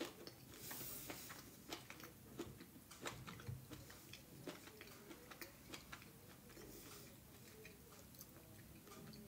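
Faint chewing of a mouthful of potato and vegetables, with scattered small mouth clicks.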